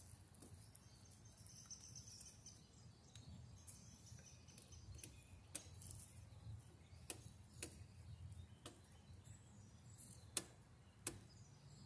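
Near silence outdoors, with a scattered handful of light clicks from a screwdriver working the screws out of a box fan's housing; two of the clicks near the end are a little louder.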